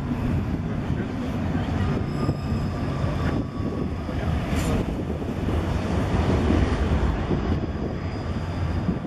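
Articulated low-floor tram running past along its track, a steady rumble with faint whining tones above it, over general street noise.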